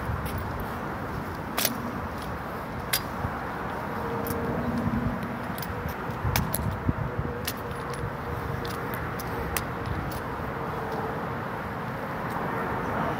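Sharp, irregular clicks and slaps of a Springfield 1903A3 replica drill rifle with fixed bayonet being spun and caught in the hands, with a light metallic rattle of its fittings, over a steady background rumble.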